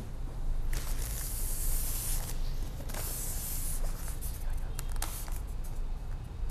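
Cardboard, polystyrene foam and plastic packaging around a new turntable being handled and shifted on a wooden table: a hissing rustle and rubbing, strongest in the first half, then in shorter bursts.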